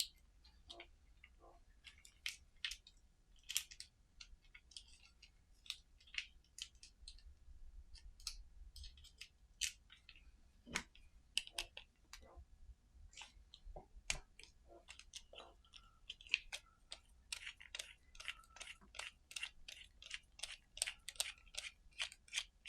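T8 Torx screwdriver bit turning a small screw out of a Matterport Pro3 quick-release tripod mount: faint small clicks and scrapes of metal on metal. They are scattered at first and come quickly and evenly over the last five seconds or so.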